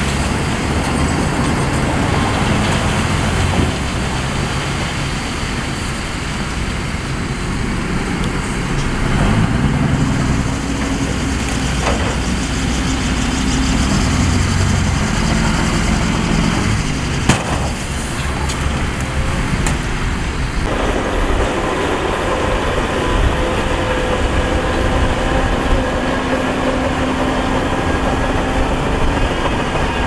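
Heavy diesel earthmoving machinery running: dump truck and bulldozer engines. The engine note rises and holds for several seconds near the middle, with two sharp knocks, and about two-thirds of the way through it changes to a steadier, higher engine tone.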